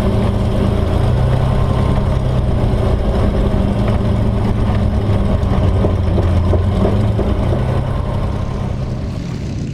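Spitfire's Rolls-Royce Merlin V12 engine running steadily at low power on the ground, heard from inside the cockpit, easing off slightly near the end.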